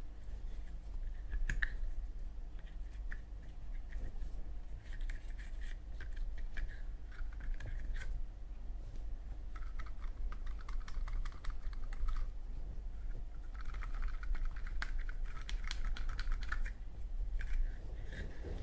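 Cotton swab scrubbing the metal of a Zippo lighter's insert, around the chimney and cam spring: several stretches of dry, scratchy rubbing broken by small clicks. A steady low hum runs underneath.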